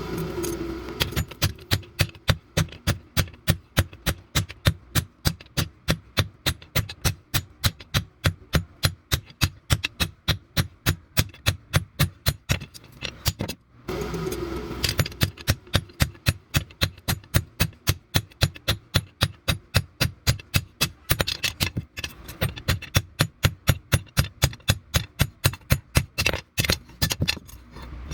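Steady hammer blows on steel at an anvil, about three strikes a second, forging leaf-spring steel into a meat cleaver. The strikes stop briefly a little before halfway, then carry on at the same pace.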